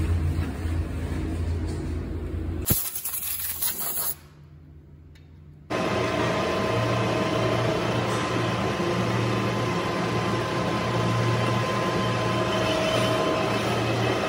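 Steady hum of running workshop machinery with a faint high whine. It is broken by a click a little under three seconds in, then a brief hiss and a quieter stretch before the hum returns.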